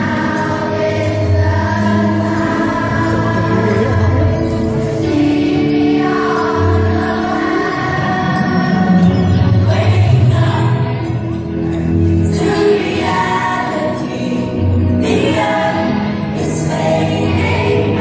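A children's choir of primary-six pupils singing together, with instrumental accompaniment underneath: low held notes and a light, regular tick on the beat.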